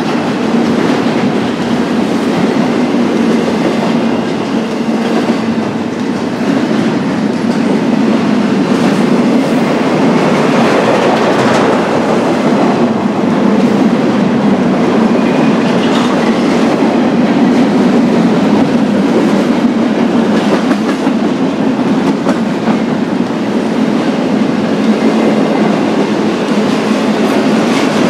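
Freight train cars rolling past on the rails, a loud, steady rumble of steel wheels on track.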